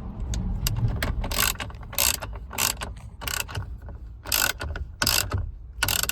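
Ratchet wrench clicking in short repeated strokes, about one every half-second to second, while the steering-wheel nut is run down onto the steering shaft.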